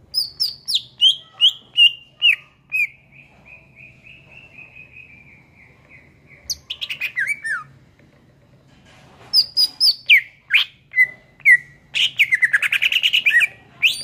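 Caged leafbird singing: loud, clear whistled phrases of falling notes, with a softer running chatter in between and a fast warbling trill near the end.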